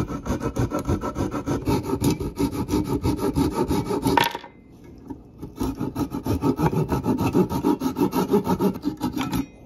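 Flexible Japanese pull saw (Z-saw Craft 145) cutting the protruding sugar maple handle end and its glued wooden wedges flush with an axe head, in quick short strokes. The sawing stops a little over four seconds in, resumes about a second later, and stops again near the end.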